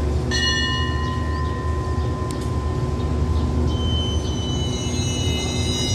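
Passenger train starting to pull out of the station: a steady low rumble from the train, with thin high-pitched metallic squealing tones setting in about a second in and again, growing, in the second half.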